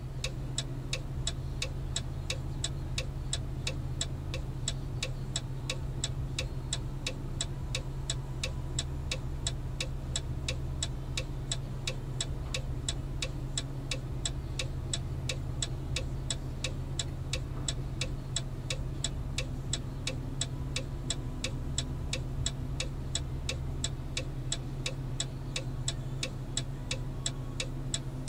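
Steady, regular ticking, about two to three clicks a second, over a constant low hum.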